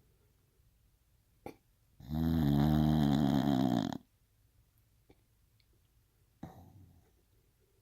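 Bulldog snoring: one long, loud snore starting about two seconds in and lasting about two seconds, then a brief quieter breath near the end.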